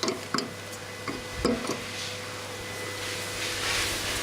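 Microwave oven running with a steady hum while it heats a compact fluorescent bulb. A few sharp clicks come in the first second and a half, and a hiss builds near the end.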